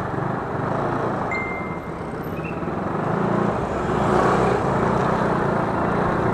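Motor scooter's small engine running at low speed, its note swelling and easing as the rider works the throttle, over wind and road noise. A short high beep sounds about a second in.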